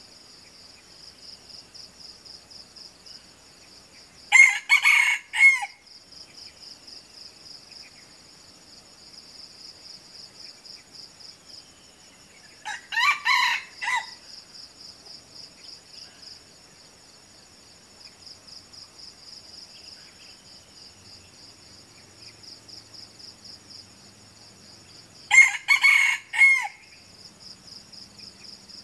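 Red junglefowl roosters crowing three times, each a short crow of about a second, spaced several seconds apart. A steady, rapidly pulsing high insect trill runs underneath.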